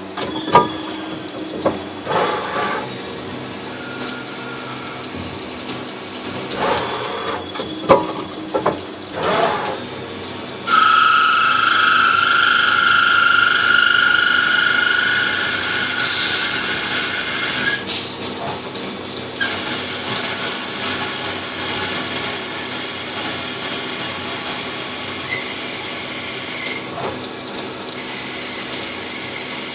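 CNC machine running with a steady mechanical hum and a few knocks. About eleven seconds in, a loud high-pitched cutting whine starts suddenly and stops about seven seconds later. A fainter, higher steady tone follows near the end.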